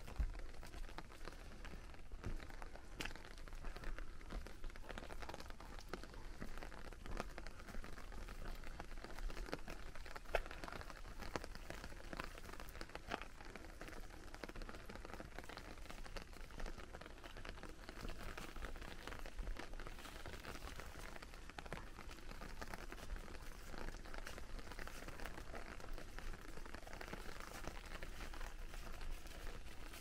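Steady light rain pattering on an umbrella, a constant hiss dotted with many small drop hits.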